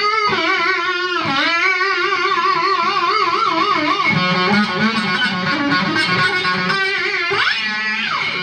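Homemade one-string electric guitar, a single string stretched between screws over a Coke bottle and amplified through an electric guitar pickup, being played. Its notes slide up and down in pitch with a wavering vibrato, with quick upward and downward slides near the end.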